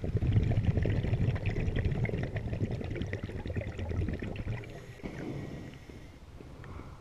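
Exhaled bubbles from a scuba regulator rumbling and crackling underwater for about four and a half seconds, then fading to a quieter water wash.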